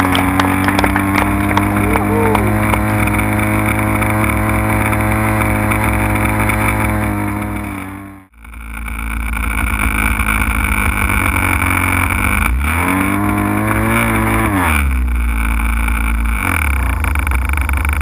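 Radio-control float plane's motor running steadily at low throttle, heard from up close. The sound fades out briefly about eight seconds in; later the motor revs up and back down over a couple of seconds.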